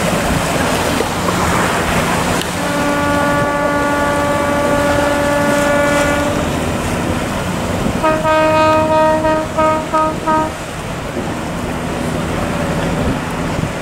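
A boat's horn sounds one long blast of about four seconds, then a rapid run of short toots at the same pitch, over the steady running of a boat engine and the rush of wind and water.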